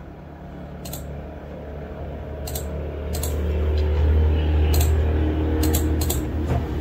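Several short, sharp computer mouse clicks, spaced irregularly, over a steady low hum that grows louder from about halfway through.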